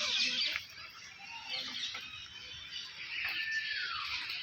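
Many birds calling at once: a dense chorus of chirps and twitters, with one call gliding downward in pitch about three seconds in.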